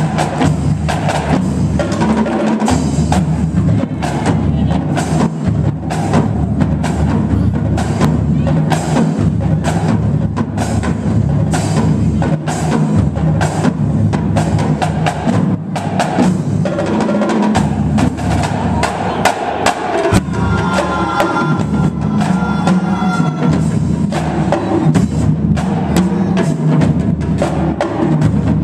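Marching drumline playing a continuous drum cadence: snare drums, a set of tenor drums and several bass drums struck in dense, rapid strokes.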